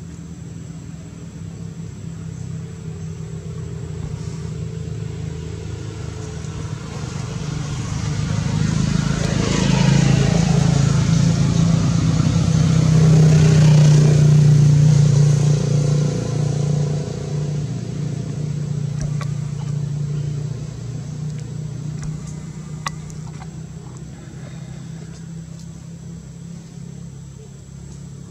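A motor vehicle's engine hum growing louder as it approaches, loudest about halfway through, then slowly fading as it passes and drives away.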